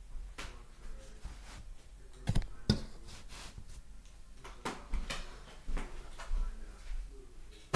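Scattered knocks and clicks as toy die-cast cars and trucks are handled and set down, with two sharper knocks about two and a half seconds in and a few lighter ones later.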